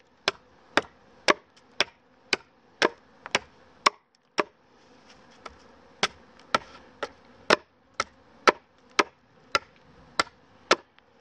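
Fixed-blade Schrade knife chopping the end of a dry acacia stake to a point, the blade striking the wood in sharp chops about twice a second, with a short pause a little before the middle.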